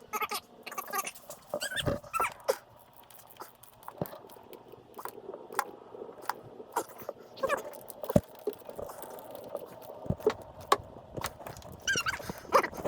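Hand tools working on intake manifold bolts: scattered sharp metal clicks and knocks, several of them heavier, with a short whining call about twelve seconds in.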